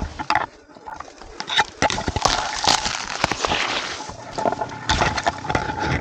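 Coconut palm fronds and flower spikes rustling and cracking as gloved hands grasp and pull them, with many sharp snaps.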